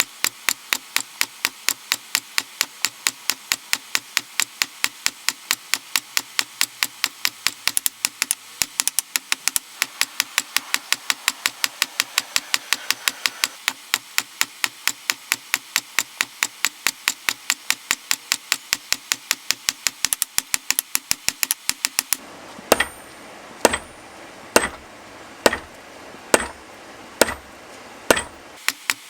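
Blacksmith's hammer forging hot steel on an anvil, working tong stock in a fast, even rhythm of about three to four blows a second. About 22 seconds in it changes to slower, louder, deeper blows about one a second, with a thin high ring.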